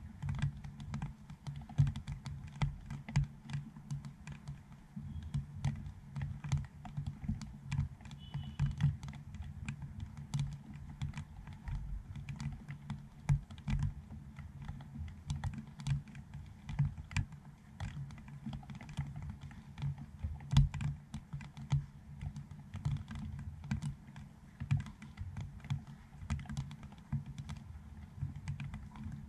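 Raindrops striking a GoPro Hero7's dome housing, picked up by the camera's own microphone as close, irregular taps, several a second, over a faint hiss of light rain.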